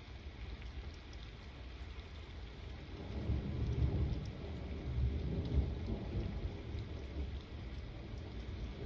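Steady rain falling, with a low roll of thunder that builds about three seconds in, peaks mid-way and slowly rumbles off.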